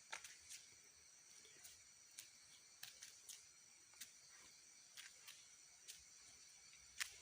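Faint night insect chorus, steady high-pitched trilling of crickets, with scattered small clicks and one sharper click near the end.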